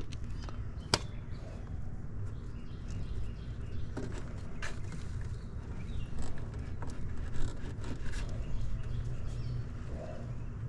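Wire spade connectors being handled and pushed onto the terminals of a new run capacitor in an air conditioner's outdoor unit: a few scattered sharp clicks over a low steady rumble.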